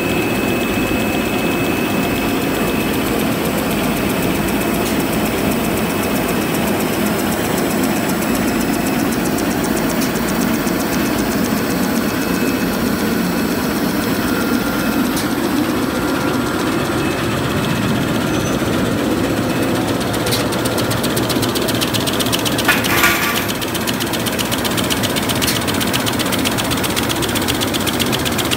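Facial tissue machine with two embossing units running at speed: a steady mechanical din with a fast, even clatter. A brief, louder burst of hiss-like noise comes about three-quarters of the way through.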